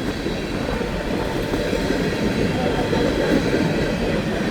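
Freight train rolling past close by: the steady, even noise of its cars' wheels running on the rails.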